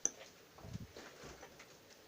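A single light click, then faint low bumps in a quiet room.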